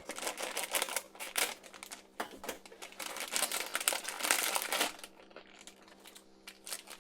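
Crinkling and rustling of a Tsum Tsum blind bag's packaging as it is torn open and handled, dense for about five seconds and then sparser near the end.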